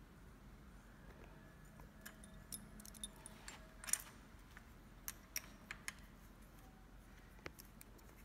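Allen key clicking against the handlebar stem's clamp bolts as they are tightened: a scattering of light metal clicks, the loudest about four seconds in.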